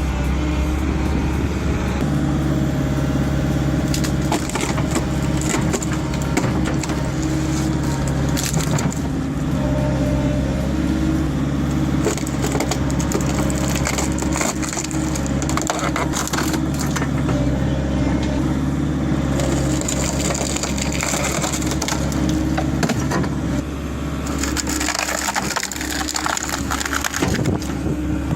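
Wood-splitting machine running with a steady engine hum while logs crack, crunch and splinter apart.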